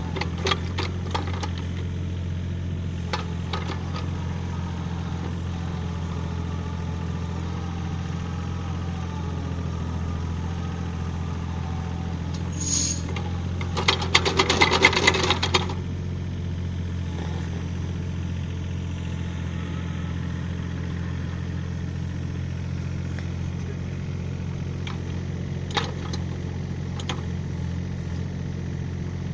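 A mini excavator's engine running steadily while it powers a hydraulic earth auger boring into topsoil, with scattered clicks and knocks. About fourteen seconds in, a louder rapid rattling lasts about two seconds.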